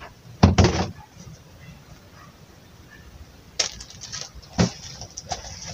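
Small household items being handled and set down on a plastic shelf: a short loud scrape or rustle about half a second in, then a few scattered clicks and knocks.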